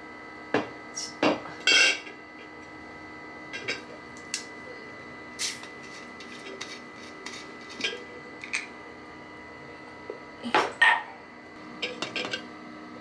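Scattered clinks, taps and knocks as a 1-litre aluminium beer bottle is handled and its screw cap twisted open, with a clear drinking cup set down on a tiled ledge. The knocks are loudest near the start and again a little before the end.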